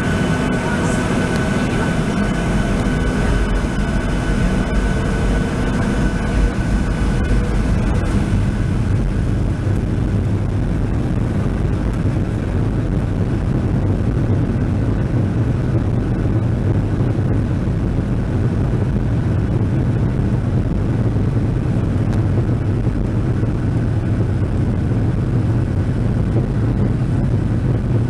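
Boeing 737-700's CFM56-7 turbofan engines at takeoff power, heard from inside the cabin over the wing: a loud, steady roar with a deep rumble as the takeoff roll speeds up. Thin whining tones sound over the roar for the first several seconds, then fade about eight seconds in.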